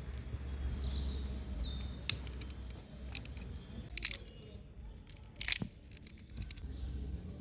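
Several sharp clicks and short rustling or scraping sounds of things being handled, over a low steady rumble.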